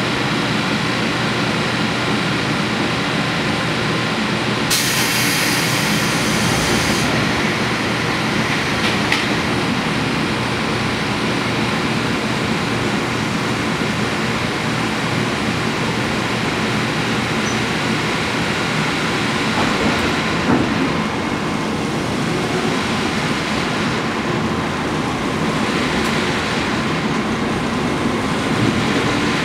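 Interior noise of a JR Kyushu 415 series electric multiple unit: a steady rumble and hum from the car as it stands and then moves off and runs, with a short burst of high hiss about five seconds in.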